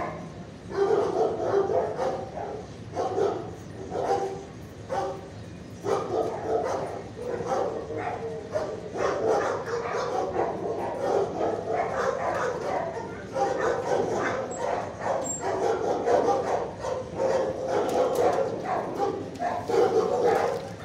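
Dogs barking in a shelter kennel block, many barks following one another and overlapping with hardly a pause.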